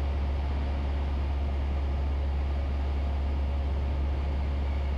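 Steady drone of a single-engine light aircraft's piston engine and propeller, heard inside the cabin in level flight, with a strong even low hum.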